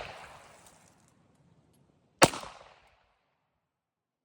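A single gunshot about two seconds in, its sharp crack ringing out and fading over about half a second, part of slow single aimed fire; the fading echo of the previous shot trails off at the start.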